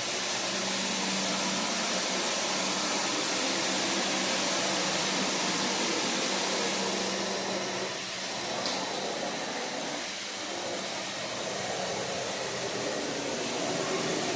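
A machine driven by an electric motor running steadily, giving a broad whir and hiss with a low hum under it for the first half. It dips slightly a couple of times but does not stop.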